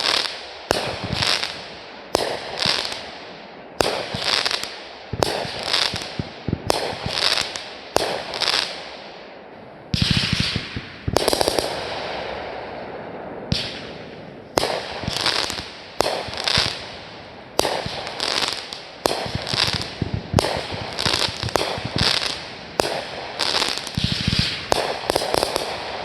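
Fireworks going off in quick succession: sharp bangs about one to two a second, each trailing off into crackle, with a longer stretch of crackling about ten seconds in.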